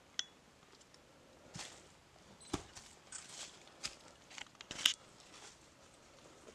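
Footsteps crunching over leaf litter, twigs and rubble: irregular snaps and crackles, the loudest a little before the five-second mark.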